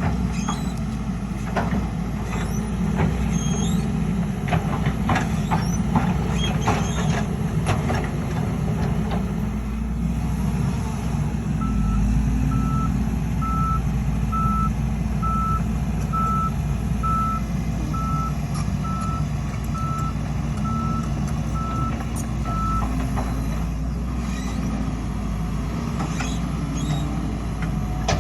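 Heavy diesel earthmoving machinery running steadily, with metal clanks and knocks during the first third. Partway through, a backup alarm starts beeping at an even pace, a little more than once a second, and stops a few seconds before the end.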